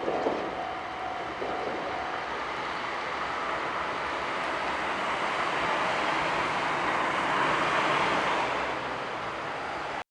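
A level crossing alarm's steady ringing stops about two seconds in, after a train has passed over it. A smooth rushing vehicle noise then swells to its loudest near the end and fades away.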